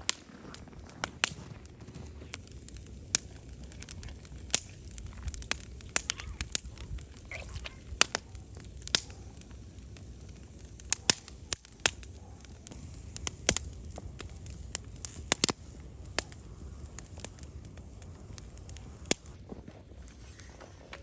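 Campfire crackling, with sharp irregular pops over a faint steady low rumble.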